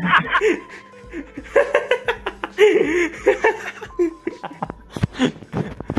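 People laughing in short bursts, mixed with a few spoken sounds.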